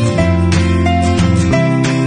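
Background music led by a plucked, strummed guitar.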